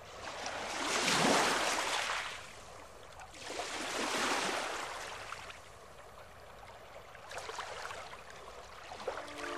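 Small waves washing onto a shore, rising and falling in three surges, the first the loudest.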